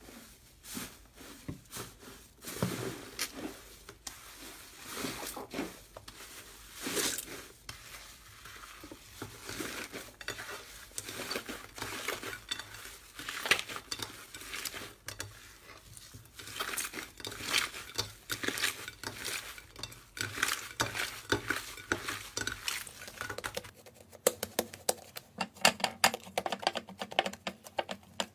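Hands squeezing, pressing and stretching slime, making irregular sticky clicks, squelches and crackling pops. About three quarters of the way through the sound changes to a denser run of sharper clicks.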